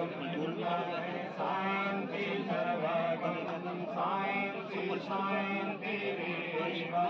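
A man chanting Hindu wedding mantras in a sing-song recitation, phrase after phrase with short breaks between.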